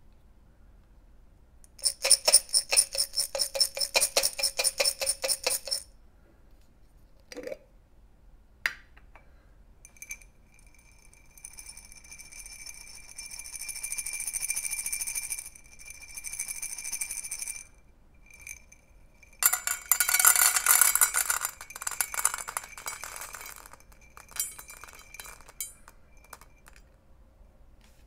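Dry cat kibble shaken in a container, a fast rattle of about five shakes a second, then poured into a stainless steel cat bowl. First it trickles in softly with a steady ringing note from the bowl, then a loud dense clatter of pellets hits the metal and thins to a few last clicks as they settle.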